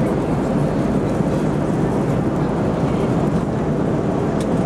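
Steady low cabin noise of an airliner in flight: engine and airflow sound heard from inside the passenger cabin, even and unchanging.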